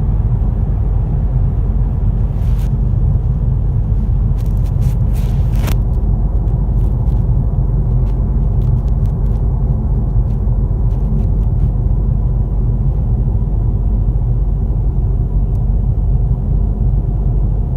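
Tyre and road noise inside a 2015 Ford Mustang's cabin at freeway speed: a steady low rumble and hum, which the owner suspects may come from a bad wheel bearing. A few sharp clicks come between about two and six seconds in.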